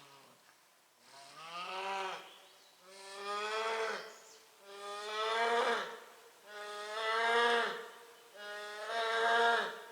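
A large animal bawling in a series of five long, loud calls about two seconds apart, each rising and then falling in pitch.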